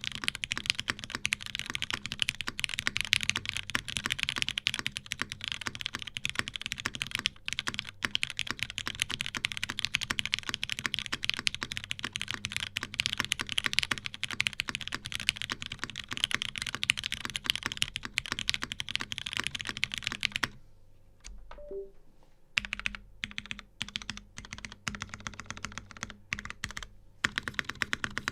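Fast typing on a custom mechanical keyboard in a Salamander case with a PBT plate, Krytox 205g0-lubed Cherry MX Black linear switches and GMK keycaps. The keystrokes come thick and fast, break off for about two seconds around three-quarters through, then return more sparsely before picking up again near the end.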